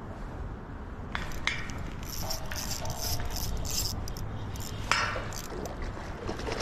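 Scattered light clicks and ticks from a Shimano Vanford spinning reel and rod being handled during a retrieve, with one sharper, louder click just before five seconds in, over a low steady background rumble.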